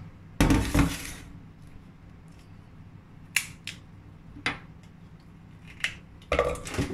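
A stainless steel mixing bowl clatters down on the counter about half a second in. Then come a few sharp, scattered clicks as dry, unsoaked shiitake mushrooms are handled and dropped into it, and a louder burst of handling near the end.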